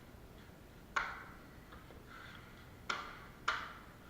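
Three sharp taps of a drywall taping knife knocking against hard material, each with a short ringing tail: one about a second in, then two about half a second apart near the end.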